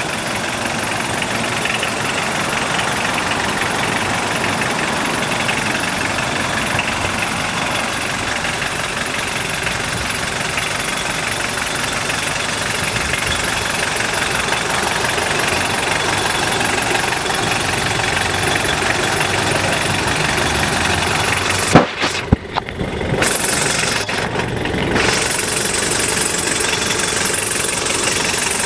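Mitsubishi Pajero turbo-diesel engine idling steadily with diesel clatter. About three quarters of the way through there is one sharp knock, after which the sound is briefly muffled for a couple of seconds.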